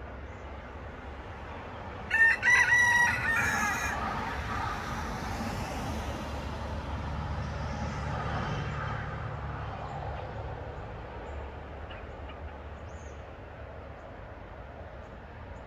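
A rooster crows once, about two seconds in: a single crow of under two seconds, broken into a few syllables. A steady low rumble runs underneath.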